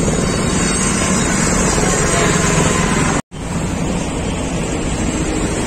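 Steady, loud outdoor roar of road traffic with a heavy low rumble of wind on the phone's microphone. The sound drops out to silence for an instant about three seconds in, then the same roar carries on.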